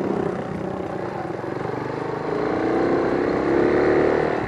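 A motor vehicle's engine running amid steady road and wind noise, its drone growing louder and rising slightly in pitch from about two seconds in.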